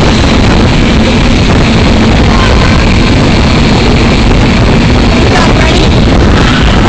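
Strong blast of wind from a wind-machine booth's fan buffeting the phone's microphone: a loud, steady rushing noise with a low hum underneath.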